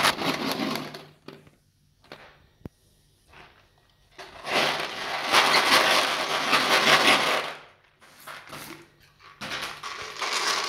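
Hard gumballs rattling and rolling against each other inside a plastic jar as it is turned and tilted by hand, in several bursts of a few seconds each, the longest in the middle. One sharp click comes between two and three seconds in.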